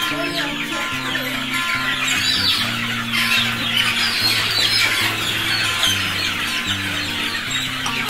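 Acoustic guitar background music with steady bass notes, over a flock of caged young chickens, about six to eight weeks old, clucking and chirping continuously.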